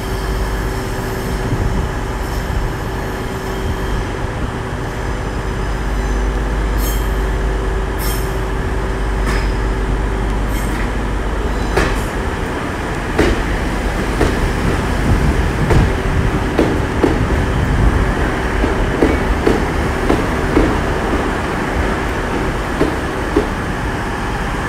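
GWR diesel multiple unit, a Class 150 coupled to a Class 143 Pacer, running into the platform with a low rumble and a steady whine. From about halfway, a run of sharp clicks as its wheels pass close by over the rail joints.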